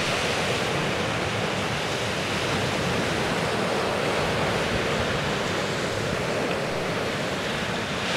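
Sea surf washing on the shore, mixed with wind: a steady, even rush.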